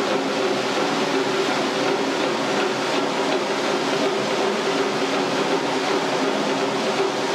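Steady rushing of a waterfall pouring into a pool, with faint steady tones underneath.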